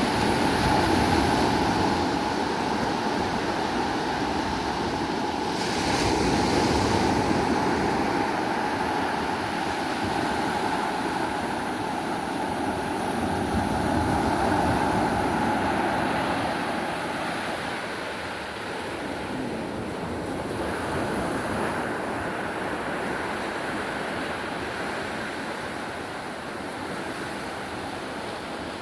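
Sea waves breaking and washing ashore at high tide, the surf swelling and easing every several seconds, with wind buffeting the microphone.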